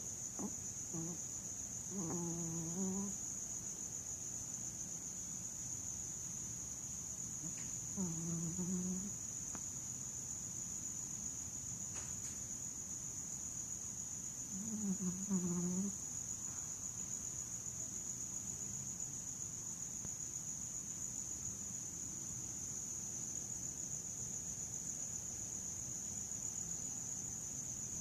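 A sleeper snoring: three drawn-out, pitched snores about six seconds apart, each around a second long, then none for the last dozen seconds. A steady high-pitched tone sits underneath.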